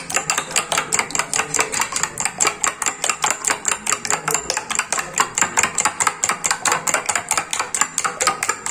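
A metal spoon beating eggs in a glass bowl: rapid, even clinking against the glass, about six or seven strokes a second.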